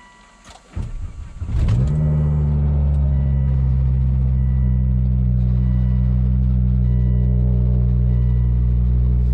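2004 Volvo S60R's turbocharged 2.5-litre inline-five on a cold start, heard from inside the cabin: the starter cranks for about a second, the engine catches about two seconds in and settles into a steady, loud high idle. The exhaust is a catted downpipe into a straight pipe.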